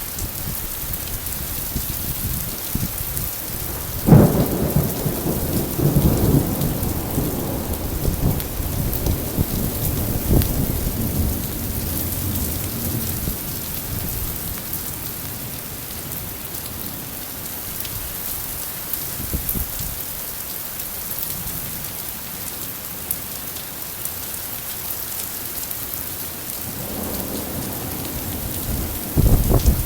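Rain falling steadily with thunder: a sudden clap about four seconds in rolls off into rumbling for several seconds, and another rumble builds near the end.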